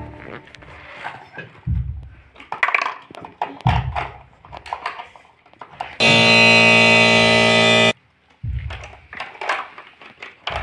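Plastic toy vehicles knocked and clattered as they are handled, with a few low thumps. About six seconds in, a loud steady buzzer-like tone sounds for about two seconds and cuts off abruptly.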